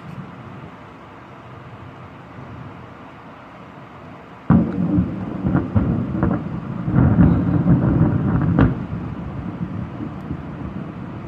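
Steady rain, then about four and a half seconds in a close thunderclap starts suddenly, crackling and rumbling loudly for about four seconds before dying away into a lower rumble and the rain.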